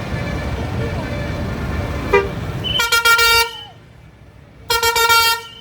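Bus telolet (Basuri) horn sounded in two short blasts, each about half a second long and a second and a half apart, the first trailing off with a falling pitch. Before the blasts there is steady road noise from a passing vehicle, which drops away.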